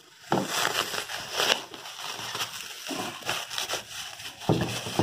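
Plastic wrap crinkling and tearing in irregular rustles as it is pulled off by hand, with the odd knock of the metal parts being handled.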